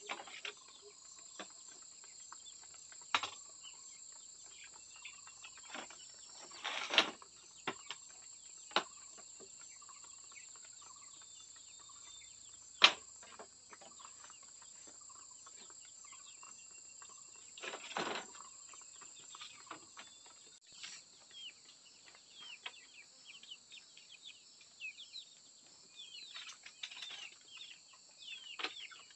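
Wooden and bamboo slats knocking and clattering as they are handled and laid on a coop floor frame: a few sharp knocks, the loudest about 13 seconds in. Beneath it a steady high insect drone, with short bird chirps growing busier near the end.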